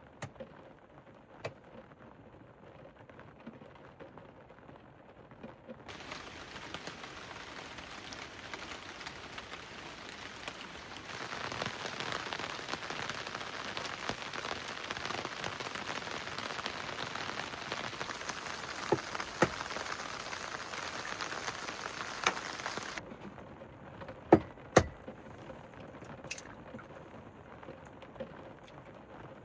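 Rain falling, with single drops tapping now and then. It turns heavier about a fifth of the way in and is at its heaviest through the middle, then suddenly drops back to light rain with scattered louder drips.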